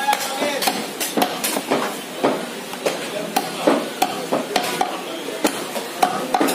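Butcher's knife chopping and cutting goat meat on a wooden log chopping block: a string of sharp, irregular knocks, about two or three a second.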